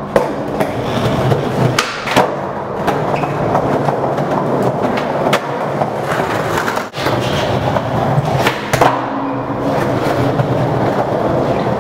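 Skateboard wheels rolling over the wooden floor of a semi-trailer, a continuous rumble broken by several sharp clacks of the board.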